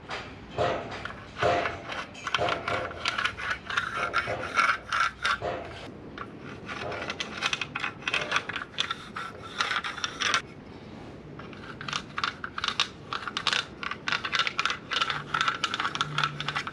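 Rapid, repeated scraping strokes of a marking tool drawing lines along a pre-tensioned concrete panel, with a short pause about ten seconds in.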